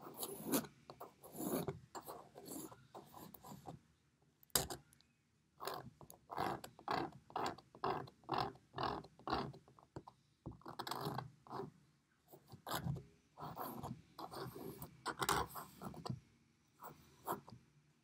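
Plastic painter's knife scraping and spreading thick white gesso across a canvas in repeated short strokes, about two a second at the busiest. There is a single sharp click about four and a half seconds in.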